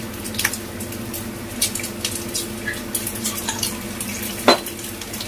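Pork belly slices frying in oil in a pan, sizzling with scattered pops and crackles over a steady low hum. A single sharp knock sounds about four and a half seconds in.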